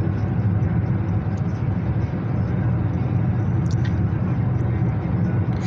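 Steady cabin noise of a moving Honda car heard from the back seat: an even, low road and engine rumble.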